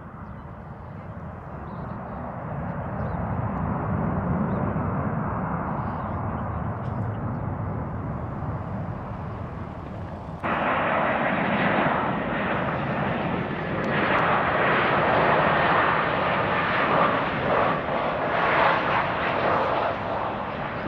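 Jet engine noise from an Airbus A319-111 with CFM56 turbofans rolling out after landing: a steady rush that builds over the first few seconds and holds. About halfway through it gives way abruptly to a louder, brighter rushing noise.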